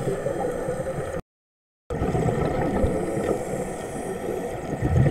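Muffled underwater noise picked up by a camera in a waterproof housing: a steady low rumbling hiss. It cuts to silence for under a second a little over a second in.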